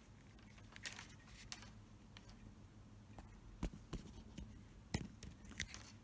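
Faint, scattered clicks and light scrapes of a multimeter's plastic crocodile-clip test lead being handled and moved on the motor's wires, a few separate ticks over a faint steady low hum.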